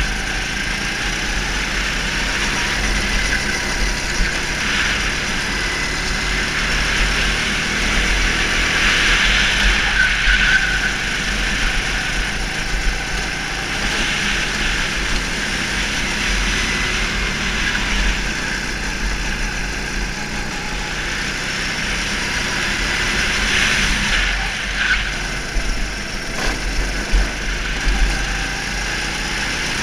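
Go-kart engine running on track at speed, with rushing noise and heavy low buffeting over it.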